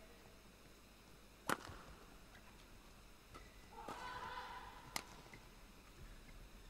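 Badminton rackets striking a shuttlecock in a rally: sharp single hits, the loudest about a second and a half in and another near five seconds, with fainter hits between. A short squeal is heard about four seconds in.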